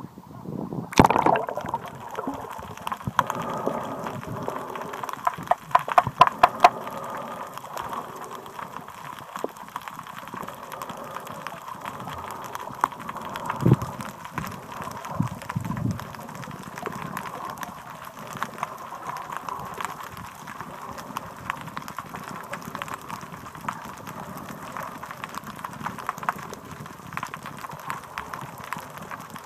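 Seawater sloshing and gurgling around a phone in a waterproof case as it goes under, heard muffled from underwater as a steady wash. A cluster of sharp clicks comes a few seconds in, and two low thumps come around the middle.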